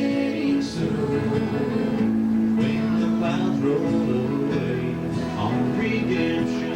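Live country-gospel band playing: acoustic guitar strummed over bass and piano.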